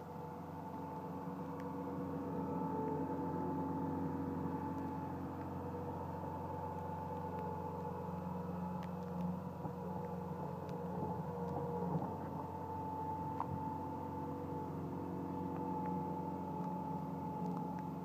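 Bobcat S160 skid-steer loader's diesel engine running steadily as it pushes snow and manoeuvres, with a few faint knocks. It grows a little louder over the first couple of seconds, then holds.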